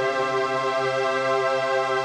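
Background music: a sustained chord of held notes.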